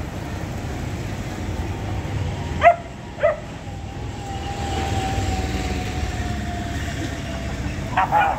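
Steady low rumble of street traffic, with two short, sharp yips from a German shepherd puppy about three seconds in and more yips starting right at the end.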